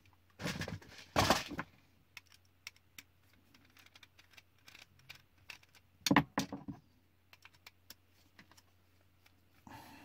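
Small parts and tools being handled on a workbench: loud clatters of hard pieces about a second in and again about six seconds in, with sparse light clicks in between.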